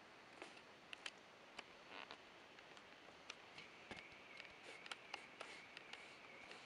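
Near silence with faint, sharp ticks at uneven intervals, about ten of them. About halfway through, a faint high steady trill comes in and keeps going.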